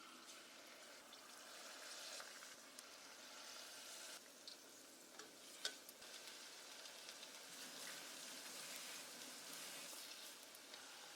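Food frying in hot oil: a faint, steady sizzle and crackle, with a few small clicks around the middle and one sharper click about five and a half seconds in.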